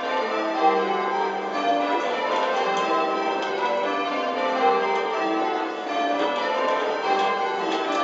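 Eight church bells change ringing Spliced Surprise Major: a continuous, even stream of overlapping bell strikes in shifting order, heard from the ringing chamber below the bells.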